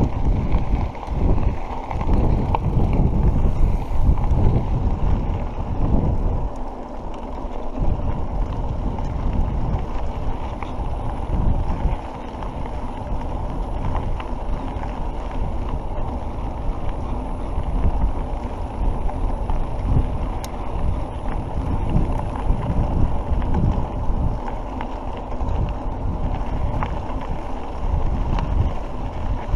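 Wind rumbling on the microphone, mixed with the low rumble of mountain bike tyres rolling over a packed dirt track. It is louder and gustier for the first few seconds, then evens out.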